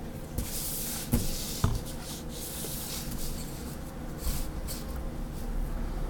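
Pen and plastic ruler working on paper: scratchy rubbing strokes as the ruler is shifted and lines are drawn along it, with two sharp taps a little over a second in.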